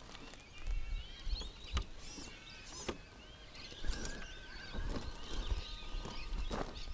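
Wild birds chirping and calling, with a few sharp knocks and a low rumble. A faint steady whine from about four seconds in fits the RC rock crawler's brushed electric motor driving it up the rocks.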